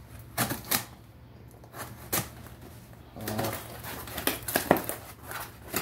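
Cardboard shipping box being handled while its packing tape is cut with a box cutter: a series of sharp knocks and scrapes, with a stretch of rustling about three seconds in.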